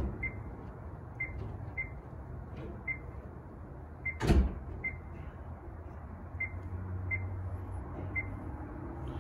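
Icom ID-5100 transceiver giving a short, high key beep for each tap on its touchscreen keyboard, about nine beeps at uneven spacing as a name is typed in. A single louder knock about four seconds in.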